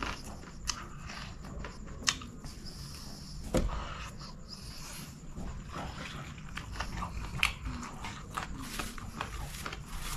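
Chewing and mouth sounds of a man eating chicken biryani by hand, close to the microphone, with many short sharp clicks scattered throughout.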